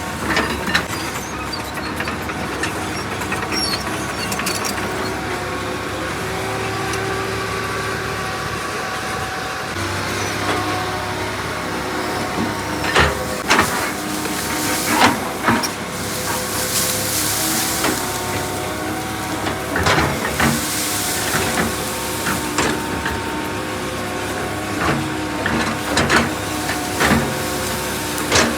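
Construction machine's diesel engine running steadily, with several sharp clanks and a couple of hissing bursts in the second half.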